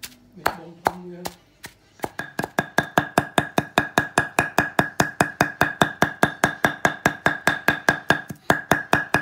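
A few knocks of a wooden pestle in a stone mortar, then a cleaver rapidly chopping dried red chillies on a wooden board, about six strikes a second, the blade ringing with each stroke.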